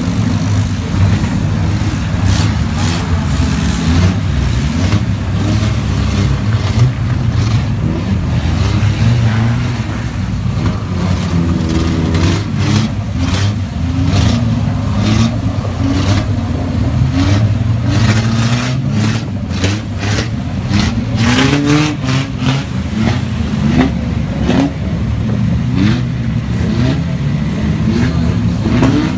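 Engines of several 1500cc banger racing cars revving hard as they race, their pitch rising and falling, with many short sharp cracks mixed in.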